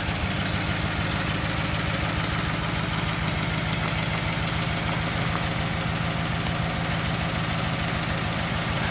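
1948 Ford F1 pickup's original 239 cubic inch flathead V8 idling with an even, regular beat.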